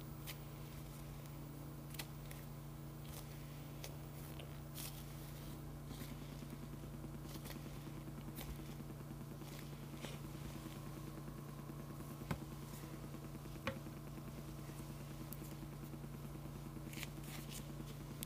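Fingers and long nails squeezing, scratching and tapping a soft foam squishy toy for ASMR, giving scattered soft crackles and sharp clicks, with two louder clicks past the middle, over a steady low hum.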